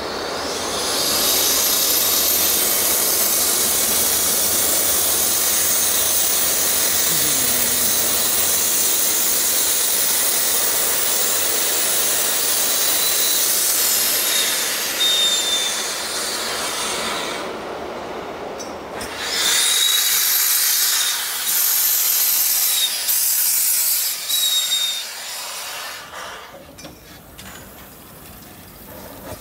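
SBB C 5/6 "Elefant" steam locomotive No. 2969 releasing steam: a loud hiss that holds for about thirteen seconds and then fades. After a short lull, several shorter hisses follow in the second half.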